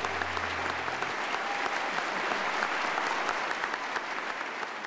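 Large audience applauding steadily after a speech, a dense patter of many hands clapping.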